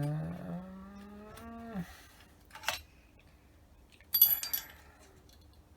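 A man's long, drawn-out 'hmmm' of doubt, rising a little in pitch and dropping at the end, over the first couple of seconds. Then a small click, and about four seconds in a sharp metallic clink of carburettor parts handled on a bench.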